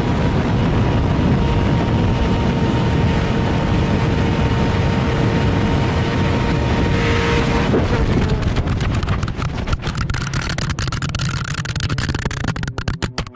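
Suzuki GSX-R1000R's inline-four held steady at full throttle in sixth gear at about 320 km/h, with a loud rush of wind. About eight seconds in the engine sound cuts off suddenly, and a rapid, irregular run of knocks and clatters follows as the action camera tumbles across the ground.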